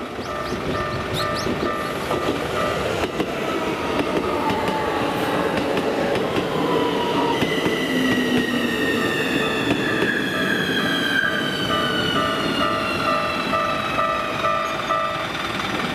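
Level-crossing warning bell ringing in a steady repeating two-tone pattern while a Keikyu electric commuter train runs over the crossing. From about seven seconds in, the train's motor whine falls slowly in pitch as it slows toward the station. The bell stops shortly before the end.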